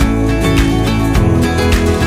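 Background music: an instrumental stretch of a song with plucked acoustic guitar over a steady beat.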